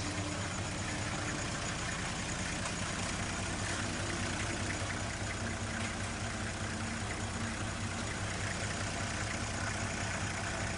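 Toyota Coaster bus engine running steadily.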